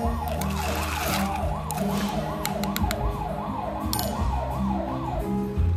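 Emergency-vehicle siren in its fast yelp mode, its pitch rising and falling about three times a second, stopping near the end; low held notes of background music sound underneath.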